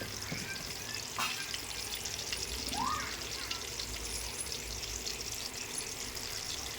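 Sliced onions frying in hot oil in a pan: a steady sizzle with a few small crackles, the early stage of browning them to a golden colour.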